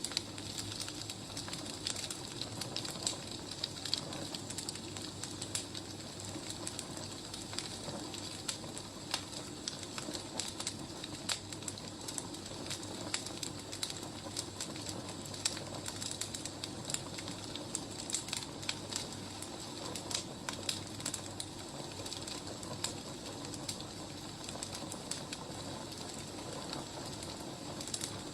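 Wood fire crackling and popping, with irregular sharp crackles over a steady low hiss.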